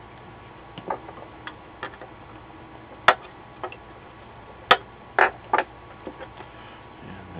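Irregular light clicks and knocks, about eight in all, from a circuit board and soldering tools being handled and set down on a workbench during desoldering; the two loudest come about three seconds in and just before five seconds in.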